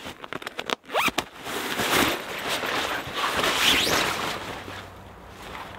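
The zipper of a stuff sack being pulled open, then a Russian Ratnik 6Sh120 universal shelter tarp being pulled out and shaken open, its fabric rustling loudly for a couple of seconds before it settles.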